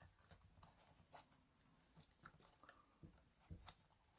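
Near silence broken by a few faint, scattered clicks and light knocks: small parts being handled as rubber bumper bands are fitted back onto a 2.5-inch SATA SSD.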